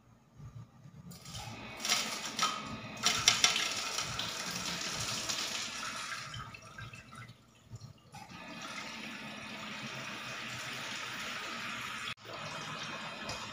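Water from a hose splashing onto the gravel-strewn glass bottom of an empty aquarium as it begins to fill. It starts about a second in and drops out for a moment near the end.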